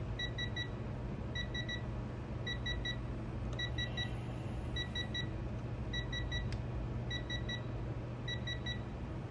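Digital torque wrench adapter beeping its target alert, three short high beeps repeated about once a second, as the 500 ft-lb setting is reached. A steady low hum lies underneath.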